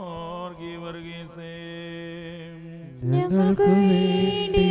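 Liturgical chanting in Malayalam: a male voice holds a long, nearly level sung note, and louder, fuller singing comes in about three seconds in.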